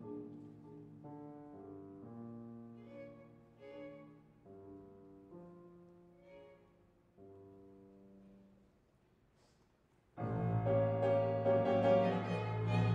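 Chamber ensemble of strings, piano and marimba playing soft, slow held chords that change about once a second and die away to almost nothing, then a sudden loud forte entry of strings and piano about ten seconds in.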